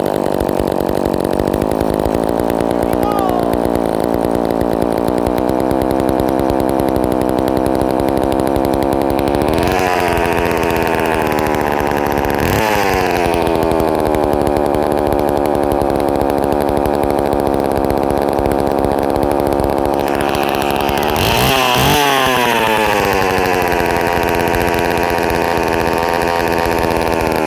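Rebuilt two-stroke chainsaw running steadily after a cold start, revved up a few times with the pitch rising and falling back to idle.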